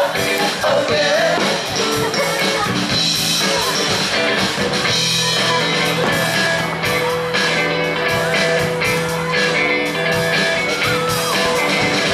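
Live rock band playing a song with a singer, guitar and a steady beat.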